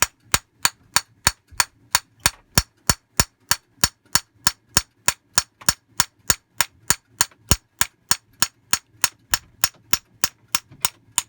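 Steady, even metallic tapping, about three sharp taps a second.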